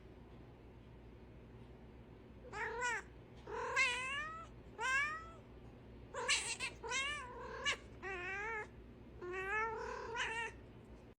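Domestic cat meowing repeatedly, about eight meows of varying length, some rising and falling in pitch, starting a couple of seconds in.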